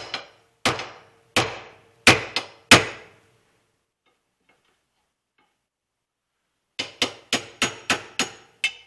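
Small steel hammer striking metal on a .22 rifle's barrel fittings, driving a part out near the magazine tube: a series of sharp taps with a faint ring, then a pause of a few seconds and a quicker run of about eight lighter taps near the end.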